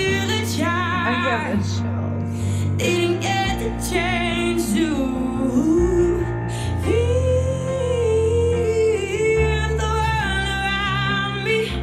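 A young female vocalist singing a slow ballad with piano accompaniment, her voice carrying a long held note with vibrato in the middle.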